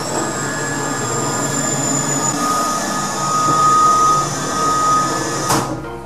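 Gartec platform lift's drive running as the platform travels between car park levels: a steady mechanical whine and rumble that stops with a clunk about five and a half seconds in.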